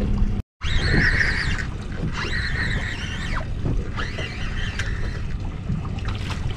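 Steady wind and water noise on an open boat, with a high, wavering squeal that rises and falls several times. The sound drops out briefly about half a second in.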